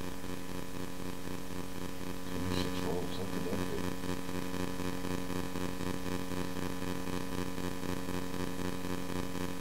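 Steady electrical buzz on the recording, a low hum with a ladder of higher tones that keeps an even level throughout, which the uploader thinks is interference from the radio transmitter.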